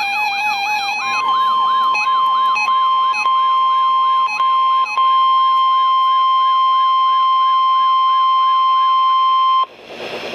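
NOAA Weather Radio 1050 Hz warning alarm tone: a steady, loud, high beep that starts about a second in, is held for about eight and a half seconds and cuts off abruptly. It signals that a weather warning is about to be read. Under it runs a siren-like tone that rises and falls about twice a second, and the first second holds a different stepped, alternating tone.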